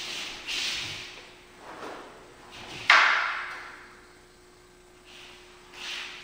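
Soft sliding and rustling noises from two kendo practitioners in hakama stepping across a wooden dojo floor with wooden swords, with one sharper, louder knock about three seconds in that fades over about a second.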